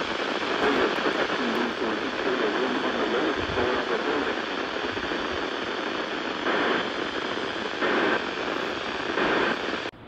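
Weather radio's speaker hissing with static from a weak NOAA weather broadcast, a faint voice now and then under the noise. The hiss swells briefly a few times in the second half, then cuts off suddenly just before the end.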